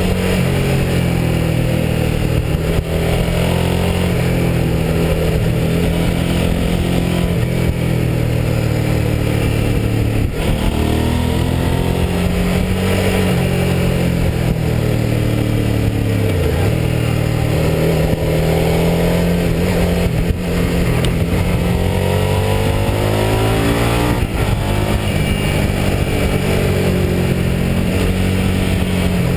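Motorcycle engine heard from the rider's seat, its revs rising and falling repeatedly with a few brief drops in pitch, over a steady rush of wind.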